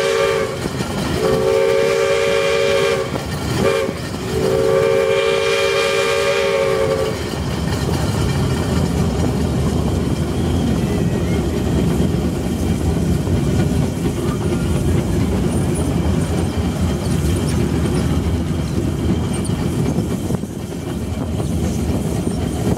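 Steam locomotive's whistle sounding a few close notes together, blown in blasts: a long one, a short one, then another long one, ending about seven seconds in. The train then runs on with a steady rumble and clatter of wheels on the rails.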